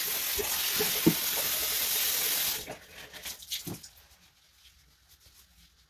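Water running from a bathroom tap in a steady hiss, shut off about two and a half seconds in; a few light knocks follow.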